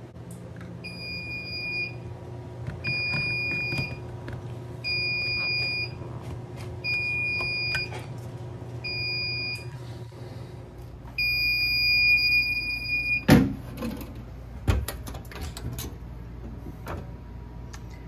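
Fire alarm system's electronic piezo beeper sounding a high-pitched beep about one second on, one second off, five times, then one longer beep of about two seconds. A sharp clack follows, then a few knocks and clicks from handling the smoke detector head.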